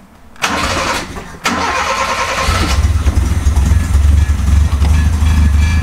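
Toyota Starlet KP61's carbureted four-cylinder engine being started, heard from inside the cabin: the starter cranks briefly, stops, cranks again, and the engine catches about two and a half seconds in and settles into a steady low idle. This is its start-up after a fresh oil change and new filter.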